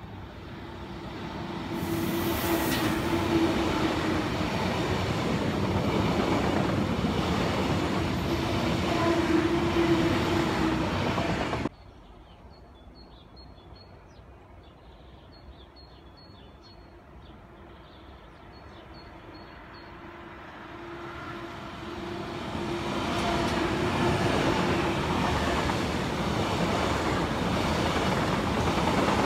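SBB RABDe 500 ICN tilting electric trains passing at speed: a steady rush of wheels on rail with a low steady tone running under it. The first passage cuts off abruptly about twelve seconds in. After a quieter spell with faint bird chirps, a second ICN approaches, growing louder, and runs past close by.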